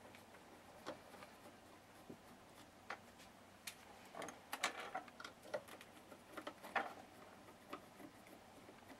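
Faint, irregular clicks and ticks of a screwdriver working the screws out of the metal rear panel of an Icom IC-R7100 radio receiver, bunched into a short cluster about halfway through.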